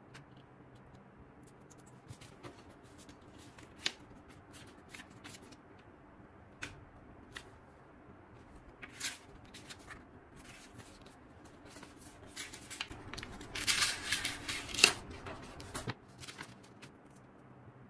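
Paper being handled: pages of a large book of photographs turned and rustled, with scattered light clicks and taps. A louder stretch of crinkling paper comes about three quarters of the way through.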